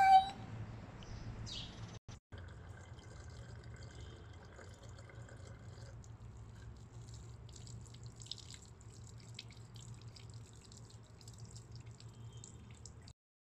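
Thin stream of tap water running from a bathroom sink faucet onto hands being rinsed, with small drips and splashes into the basin. The sound cuts off suddenly near the end.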